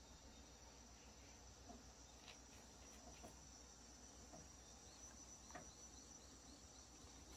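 Near silence: faint room tone with a thin, steady high-pitched whine and a few soft ticks.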